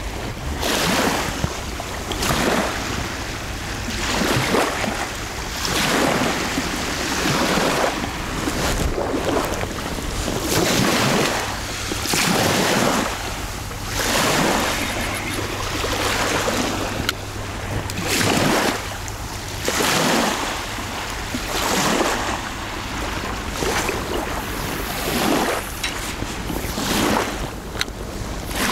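Small waves washing in one after another, a swell of splashing about every two seconds, with wind.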